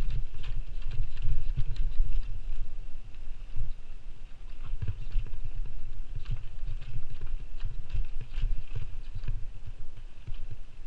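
Mountain bike descending a rough dirt trail: irregular knocks and rattles as the bike runs over rocks and roots, over a steady low rumble.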